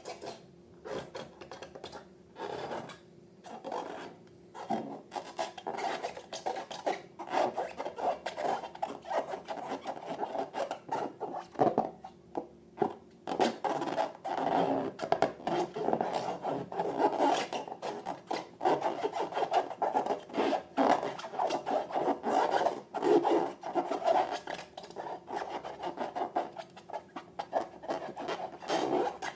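Slime being mixed and worked by hand, a continuous run of small sticky clicks and crackles that grows busier after the first few seconds.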